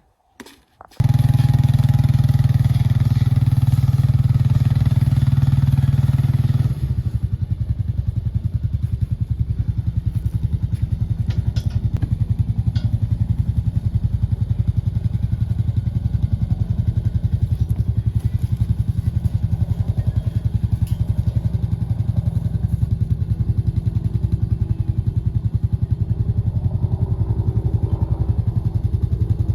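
Four-wheeler (ATV) engine running, coming in sharply about a second in. It runs higher and louder at first, then drops lower about seven seconds in to a steady, evenly pulsing run.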